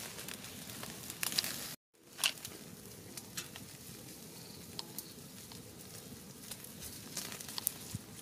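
Open wood fire crackling, with scattered sharp pops and snaps over a steady hiss.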